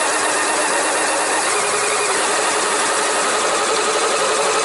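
LEGO Technic electric motors and plastic gear train of an RC tracked vehicle running steadily, heard from a camera mounted on the vehicle; a steady whine comes in about a second and a half in.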